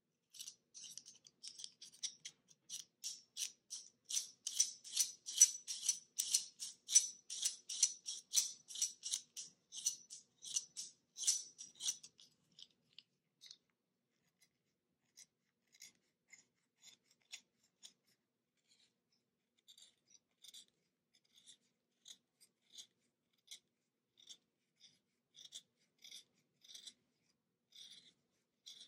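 Snap-off utility knife blade shaving the cedar wood of a Faber-Castell 9000 HB pencil to a point, in quick scraping strokes about three a second. About twelve seconds in, the strokes become fainter and come about once a second.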